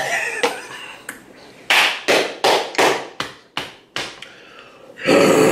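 Hands clapping six times in quick, even succession, about three claps a second. A louder, longer noisy burst follows near the end.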